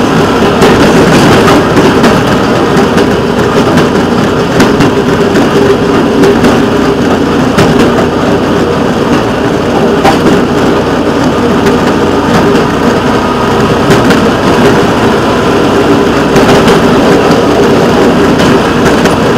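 A rail vehicle's engine running steadily as it rolls along the track. Wheel-on-rail noise and occasional clicks sound over the drone.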